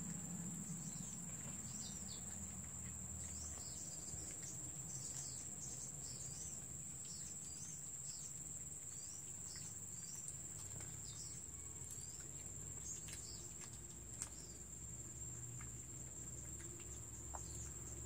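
A steady, high-pitched insect drone, with short bird chirps scattered throughout.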